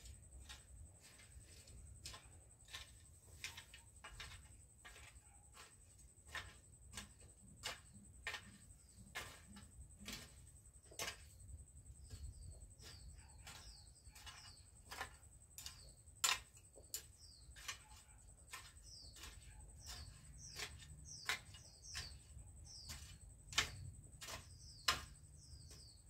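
Faint sharp clicks, irregular at about one or two a second, with short falling bird chirps joining from about halfway through, over a steady thin high whine.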